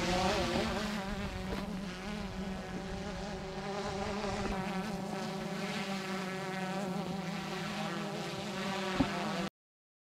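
Multirotor drone's propellers buzzing steadily in flight, the pitch wavering slightly. A single sharp click near the end.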